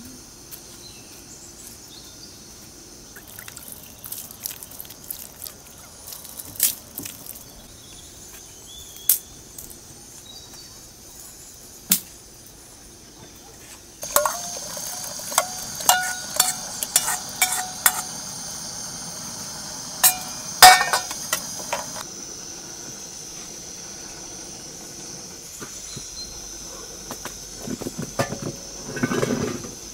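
Buttermilk poured from a steel ladle into a pot of chopped greens, with repeated sharp metal clinks of ladle against bowl and pot over a steady hiss.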